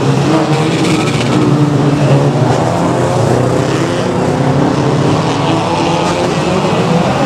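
Several banger-racing cars' engines running and revving together, loud and continuous, with pitches rising and falling as the cars jostle in a pile-up.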